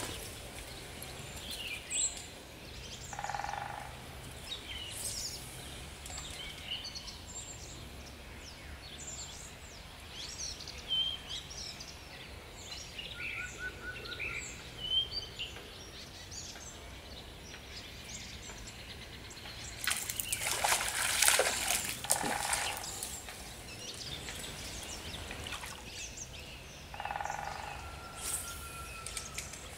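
Birds chirping and calling over the steady rush of a small flowing stream. A louder burst of noise lasting about three seconds comes about two-thirds of the way through.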